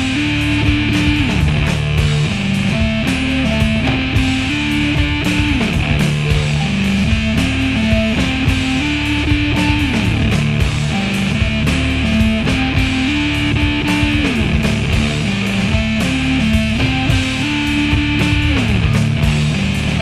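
Rock music with electric guitar and a steady driving beat, laid over the footage.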